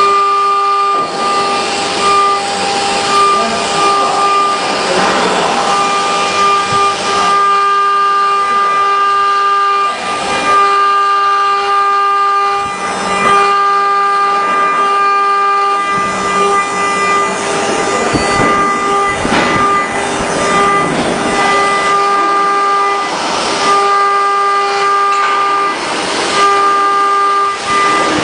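CNC machine cutting aluminium: a steady, high spindle whine made of several even tones, with swelling, hissing cutting noise over it.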